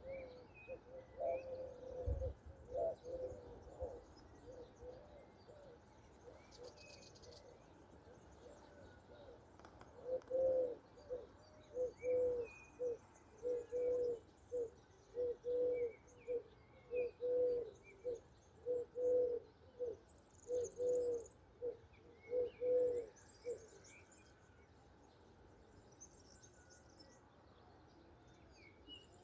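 A dove cooing: a few soft coos at the start, then from about ten seconds in a long run of low, evenly spaced coos, roughly one a second, which stops about two-thirds of the way through. Small songbirds chirp faintly throughout.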